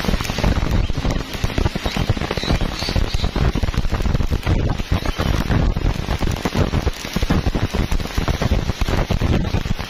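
Stick-welding (shielded metal arc) electrode burning on thick steel plate: a steady, dense crackle of the arc.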